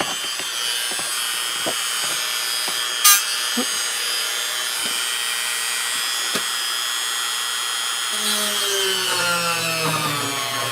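Small electric craft drill running steadily while drilling holes through a paper page, with a high whine whose pitch drops over the last few seconds. There is a sharp click about three seconds in.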